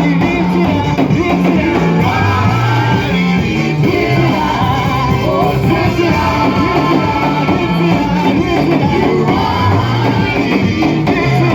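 Loud live church praise music: voices singing over a band, playing steadily without a break.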